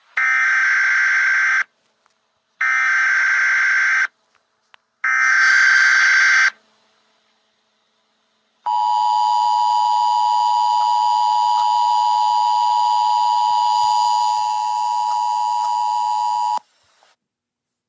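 Emergency Alert System tones: three short bursts of SAME header data tones, then after a pause the steady two-tone attention signal, held about eight seconds before it cuts off.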